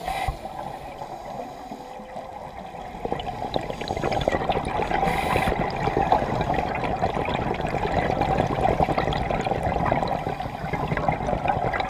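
Underwater bubbling and crackling from a scuba diver's exhaled air bubbles, heard through an underwater camera, growing louder about three seconds in.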